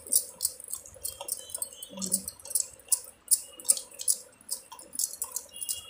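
Hands rubbing and swishing in a tub of soapy water, with many small irregular splashes.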